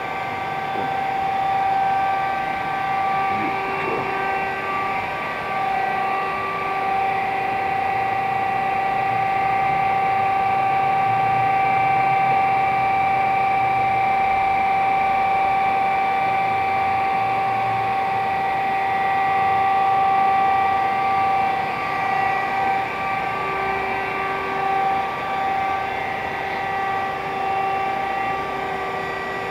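RAS 74.25 CNC folding machine running, a steady mechanical hum with several constant whining tones. A lower tone joins in a few seconds in and again near the end.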